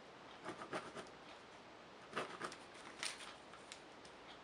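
A pen marking pattern paper along a ruler: a few short, faint scratchy strokes.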